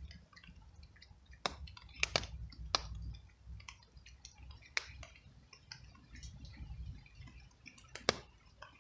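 A cat crunching dry kibble: irregular sharp crunching clicks, several in quick succession and a loud one near the end, over a low background rumble.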